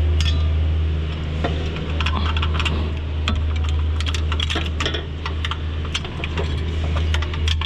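Metal tools and engine parts clinking and tapping at irregular intervals over a steady low hum.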